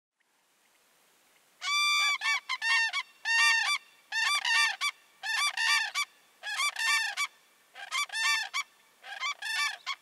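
A pair of common cranes calling together in a duet: a long run of loud trumpeting calls in quick groups, starting about one and a half seconds in.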